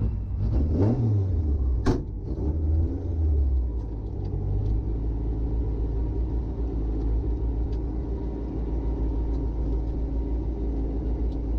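Ford Escort RS 2000 rally car's engine heard from inside the car, blipped a few times in the first few seconds, with one sharp click about two seconds in, then idling steadily while it waits at the stage start.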